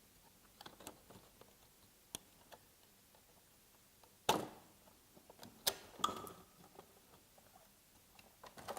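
Scattered light clicks and knocks of parts being handled as the motor assembly is worked out of a self-balancing scooter's case, with a sharper knock about four seconds in.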